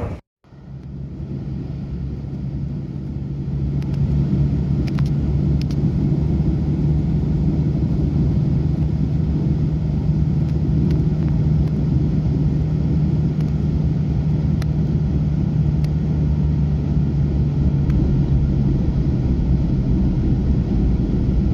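Car on the move: a steady engine drone and road rumble, building over the first few seconds as it gathers speed, then holding even.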